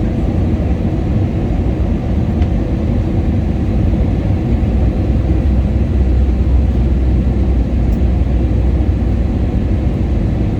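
Steady cabin noise inside an Airbus A321ceo airliner on approach: a constant low rumble of engines and airflow, swelling slightly in the middle.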